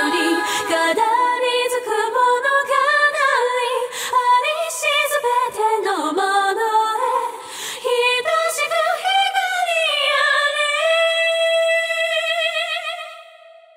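Unaccompanied Japanese vocals with layered chorus harmony tracks and no backing music, singing a slow line. Near the end the voices settle on one long held note that fades away.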